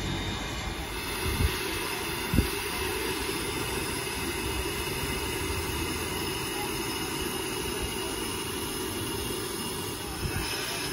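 A 1928 Vulcan Iron Works 0-4-0 coal-burning steam locomotive standing in steam, giving a steady hiss. Two short sharp knocks come about one and a half and two and a half seconds in.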